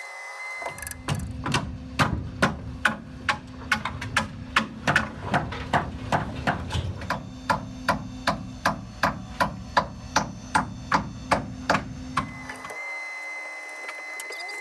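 A hammer driving nails into wood framing: a steady run of about two dozen even blows, a little over two a second, over a low rumble. The blows start about a second in and stop about twelve seconds in.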